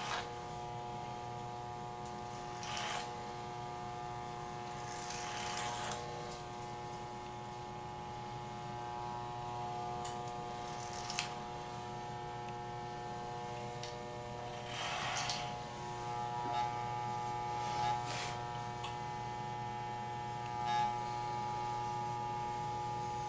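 Electric hair clippers running with a steady motor hum. About six times, a brief louder buzzing rasp comes as the blades pass through thick hair.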